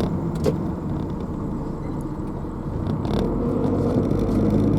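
Car driving, heard from inside the cabin: a steady low rumble of engine and road noise, with a couple of light clicks.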